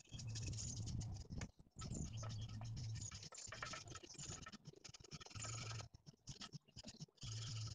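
Hand scrub brush scrubbing the grimy outside of an engine block, wet with diluted degreaser. Quick scratchy back-and-forth strokes come in bursts of about a second, with short pauses between them.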